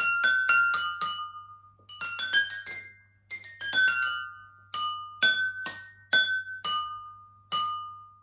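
Drinking glasses tuned with different amounts of water, struck one at a time to play a tune: each strike rings at its own pitch. Quick runs of notes come first, then slower single notes about half a second apart, the last left to ring out.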